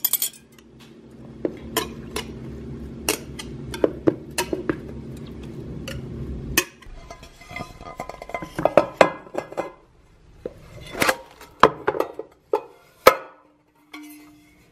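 Dishes and kitchen utensils clinking and knocking in irregular sharp clicks, most of them in the second half. A steady low hum runs under the first six seconds or so and then cuts off abruptly.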